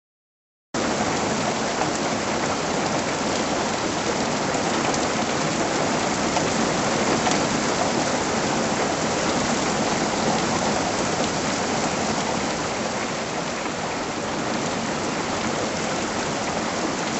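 Heavy rain shower pouring down with a steady, even hiss. It starts abruptly just under a second in and cuts off suddenly at the end.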